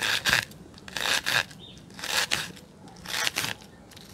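Kitchen knife cutting through an onion on a plastic cutting board: four cuts about a second apart.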